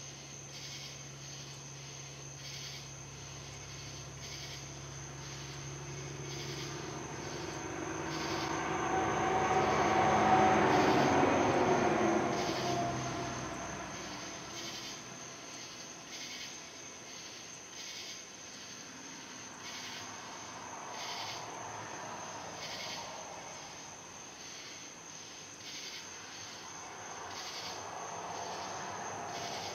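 A passing vehicle's engine and rushing noise, swelling to its loudest about ten seconds in and fading away by fifteen seconds, with a smaller swell near the end. A steady high whine runs underneath.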